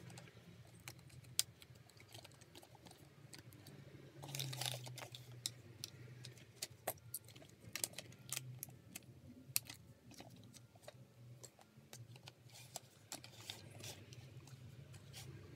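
Hard plastic toy construction pieces clicking and clacking as gears and peg axles are pushed onto the frame and fitted together: scattered, irregular clicks, busiest about four seconds in and again near the end.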